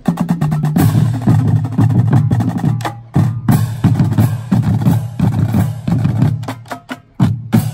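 Marching drum line playing: snare drums rattling out fast strokes over bass drums sounding changing low pitches. The passage thins out near the end and finishes on one loud hit.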